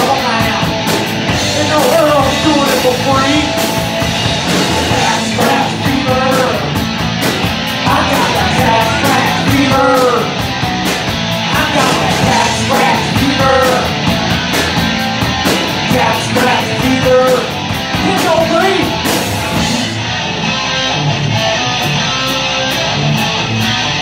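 Live rock band playing through a PA: distorted electric guitars, bass and drums. About four seconds before the end the cymbals stop and the guitars carry on.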